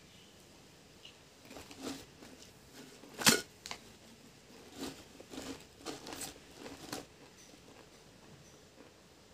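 Close-up crunching of Pringles potato chips being chewed, in a run of short crackly bites. A single sharp knock about three seconds in is the loudest sound.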